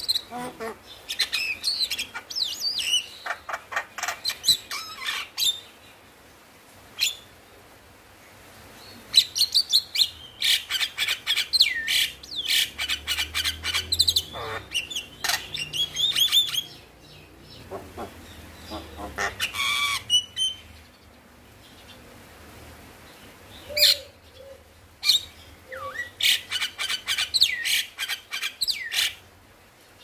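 Male Javan myna singing in bursts of rapid chattering, clicking and short whistled notes, with pauses of a few seconds between bursts.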